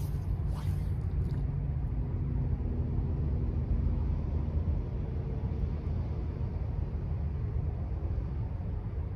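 Low, steady engine rumble with a faint hum. About half a second in, a fly line swishes once through the air on a cast.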